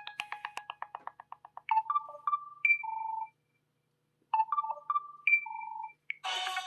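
Built-in ringtones playing from a Samsung Galaxy S (SCH-i500) phone's speaker. A fast repeating tone dies away over the first second and a half, then a short electronic chime phrase of a few quick notes ending on a held note plays twice with a second's pause between. A fuller, busier ringtone tune starts near the end.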